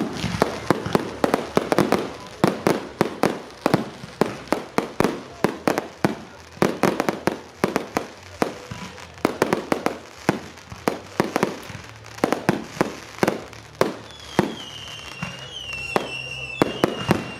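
Fireworks display: a rapid barrage of bangs and pops, several a second, with no pause. A high wavering tone sounds over them in the last few seconds.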